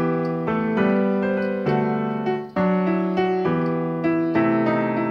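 Background piano music: a slow melody of sustained notes, one after another.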